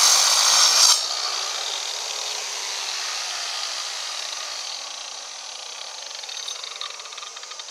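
Angle grinder cutting into a stone block, then lifted off the stone about a second in. The disc spins down with a falling whine that fades out slowly.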